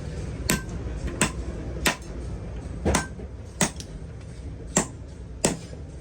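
A hammer striking metal, about seven sharp blows at an uneven pace, some leaving a brief ring.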